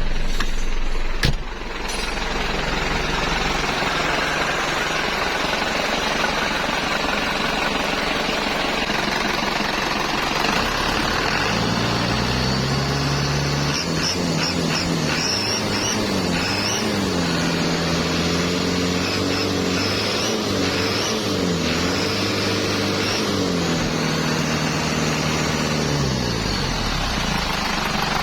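Turbocharged Toyota 14B four-cylinder diesel engine running, a steady rushing noise at first, then from about twelve seconds in its note rises and falls several times as it revs up and eases off.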